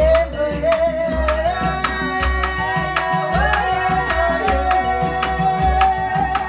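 A man singing live in long, held notes, with bends in pitch, over steady beats on a large hand drum fitted with metal rattle plates. A plucked string instrument plays along.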